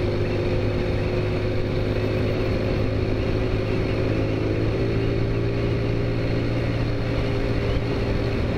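Taotao Zummer scooter's small four-stroke engine running steadily at cruising speed, heard from the rider's seat. Its pitch shifts slightly about halfway through.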